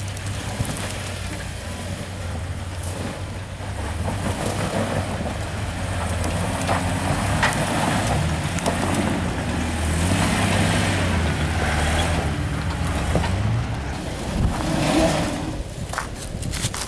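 Off-road vehicle engine working at low speed over rough ground, its revs rising and falling, with scattered knocks and scrapes, several of them close together near the end.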